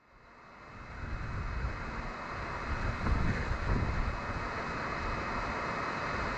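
Wind buffeting a small camera's microphone in gusts, with faint steady high-pitched tones beneath it. It fades in from silence at the start.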